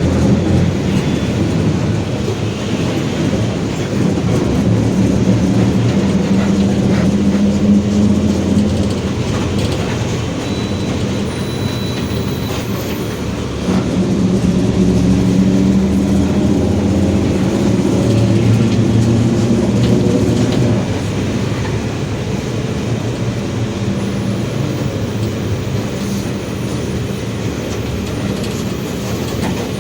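Mercedes-Benz OF-1721 Bluetec 5 bus's diesel engine and drivetrain under way, with a steady low growl from the differential. The drone swells twice, once early on and again from about halfway, easing between and after, as the bus pulls and lets off.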